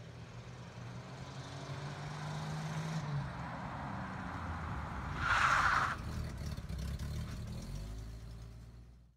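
A car approaching and passing close, its engine humming and getting louder as it nears. There is a louder rushing burst about five seconds in. The sound cuts off suddenly at the end.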